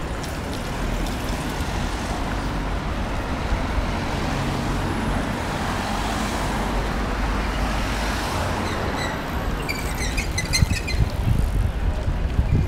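Busy city road traffic: cars and buses passing, with a steady rumble of engines and tyres. About ten seconds in, a rapid string of short high-pitched tones sounds over it.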